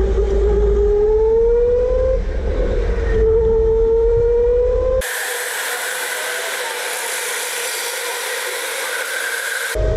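Electric racing kart's motor whining and rising in pitch twice as the kart accelerates, over a low wind and vibration rumble on the onboard camera. About halfway through this gives way to a steady hiss with faint motor whine from karts passing trackside.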